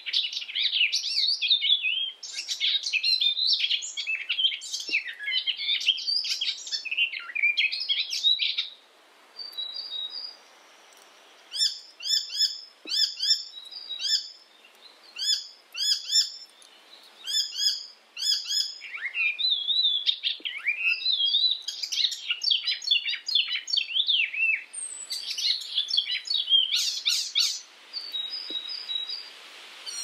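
Icterine warbler singing: long runs of fast, varied chattering notes. Around the middle comes a stretch where one short phrase repeats about twice a second.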